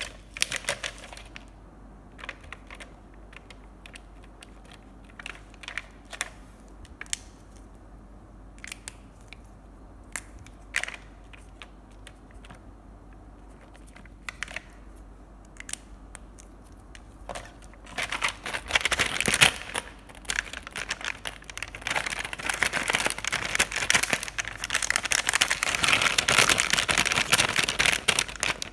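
Scattered clicks and taps of marker pens and caps on a clear plastic pen pack, then from about two-thirds of the way in, a steady crinkling of the plastic pack as a thumb rubs the washable-marker writing off a paper label stuck to it.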